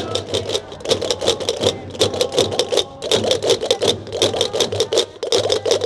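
Gomeran chácaras, large wooden castanets, clattering in a fast, steady rhythm of about seven or eight clicks a second, over the beat of tambores, goatskin drums struck with a stick, as a procession group plays together.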